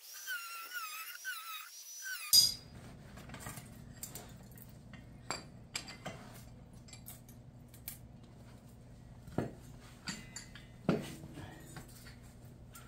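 Light metallic clinks and clicks of hand tools and sheet-metal pieces being handled, over a faint steady low hum; a sharp click about two seconds in is the loudest. It opens with a brief wavering high-pitched tone.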